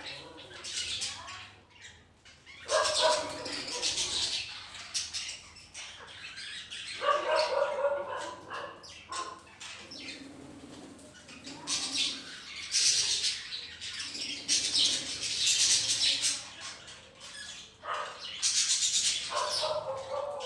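A flock of budgerigars, kept with ring-necked parakeets, chattering and chirping in repeated bursts, with some louder lower calls among the high warbling.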